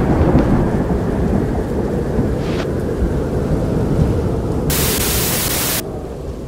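Low, dense thunder-like rumble with a hiss over it, from the soundtrack's sound design. About five seconds in a bright rush of hiss swells in for roughly a second and cuts off suddenly, and then the rumble begins to fade.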